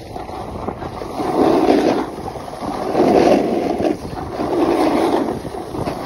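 Snowboard sliding down a groomed slope, its board scraping over the snow in three swelling surges, with wind rushing over the phone's microphone.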